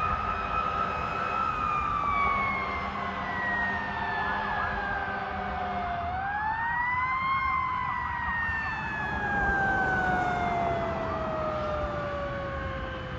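Fire apparatus siren wailing: its pitch sinks slowly for several seconds, climbs quickly about six seconds in, then sinks slowly again.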